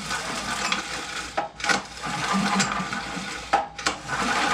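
Recoil starter rope of a Firman generator's 439 cc OHV engine pulled out three times in long, even pulls, each with a rasping whir. The engine turns over freely and no longer locks up.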